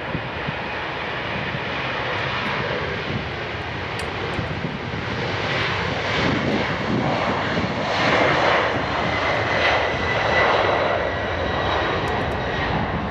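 Boeing 767 freighter's two jet engines at takeoff power during the takeoff roll: a broad rush that builds and is loudest past the middle, with a steady high fan whine joining in the latter part.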